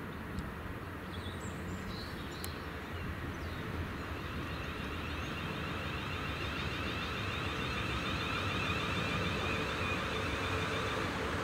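Class 450 Desiro electric multiple unit approaching slowly, its rumble on the rails growing steadily louder. About four seconds in, a high rippling electric whine from the unit joins it.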